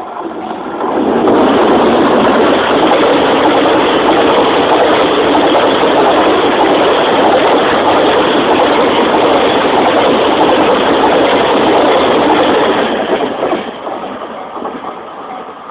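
Freight train of tank wagons, hauled by an EH500 electric locomotive, passing close by: a loud, steady rolling of steel wheels on the rails that builds about a second in, holds for about twelve seconds and then fades away.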